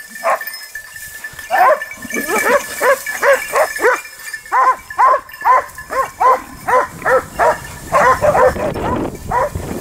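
Hunting dogs barking in a rapid, steady run of sharp barks, about two to three a second, baying at a wild boar held in the brush. A rushing hiss builds near the end.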